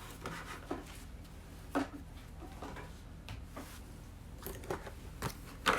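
Scattered soft taps and rustles of trading cards and their packaging being handled, at irregular moments over a faint steady hum.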